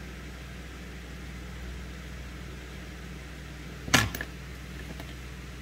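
Steady low electrical hum, with a single sharp tap about four seconds in.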